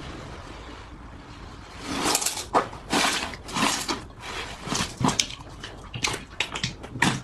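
Slime being squeezed and worked by hand: irregular wet squelches and pops, starting about two seconds in after a faint hiss.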